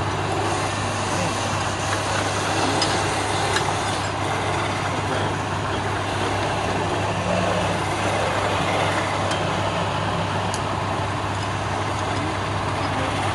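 Wood lathe running with a steady motor hum while a hand-held chisel cuts along the spinning wooden spindle, giving a continuous rough hiss.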